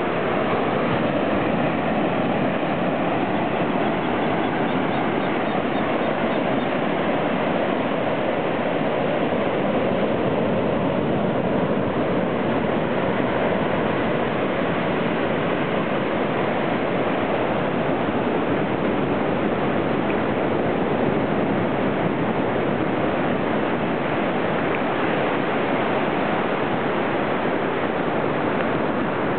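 Steady rush of surf washing up on a sandy beach, an even noise that holds at one level throughout.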